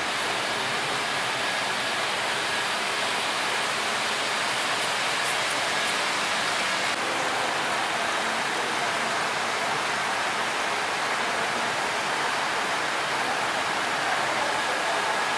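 Steady, even rushing hiss with a faint thin whine held under it.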